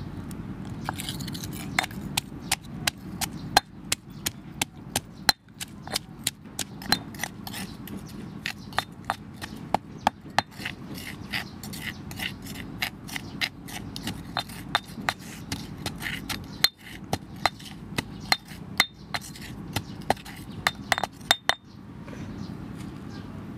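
A metal spoon striking a stone mortar as it mashes chillies and salt, giving sharp clinks about two to three times a second that stop shortly before the end.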